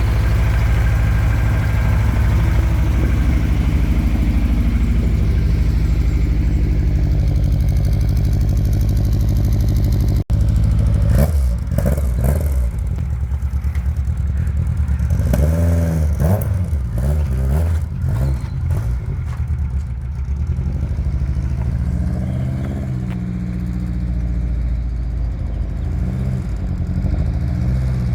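Naturally aspirated 1JZ 2.5-litre straight-six engine running, first at a steady idle-like drone. After a sudden break about ten seconds in, the revs rise and fall a few times as the car is driven, then settle to a steadier run.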